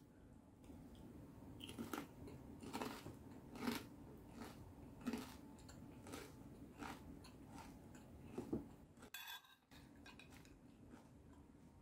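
Close-mouthed chewing of crunchy fried food, a crispy Thai salad of fried fish, crispy pork and pork rinds, heard close up. It gives about nine crisp crunches, roughly one a second.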